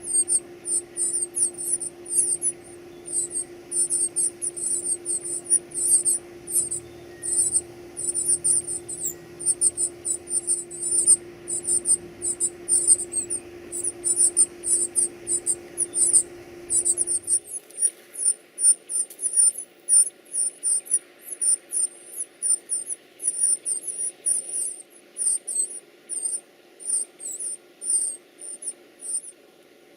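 Nestling sparrows giving rapid, very high-pitched begging calls, many a second, which stop near the end. A steady low hum runs underneath and stops about halfway through.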